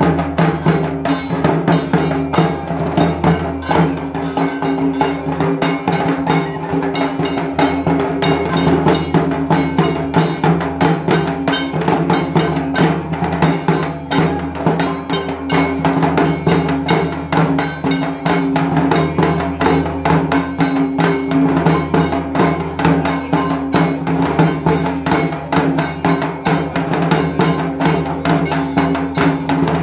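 Dhaks, large Bengali barrel drums, beaten with sticks in a fast, unbroken rhythm of dense strokes.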